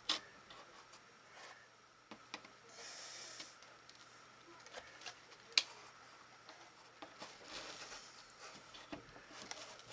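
Small handling sounds of a freshly super-glued part being worked loose from the cardboard it stuck to: a few light clicks, the sharpest about five and a half seconds in, and two short stretches of soft scraping.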